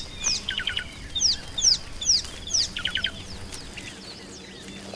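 Wild birds calling: a string of quick, high chirps that slide downward, with two short bursts of rapid repeated notes.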